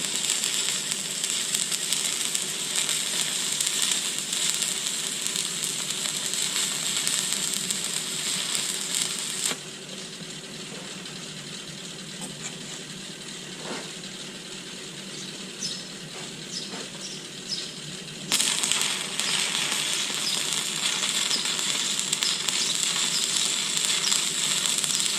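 Stick-welding arc with a 2.4 mm electrode crackling and sizzling steadily; it cuts off abruptly about nine and a half seconds in, a few faint ticks follow in the lull, and the arc strikes again about eighteen seconds in and keeps crackling.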